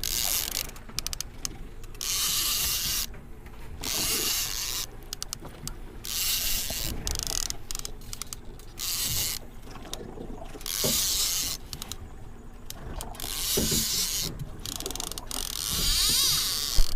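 Fishing reel being cranked in repeated bursts of about a second, every couple of seconds, as a hooked king mackerel is reeled in.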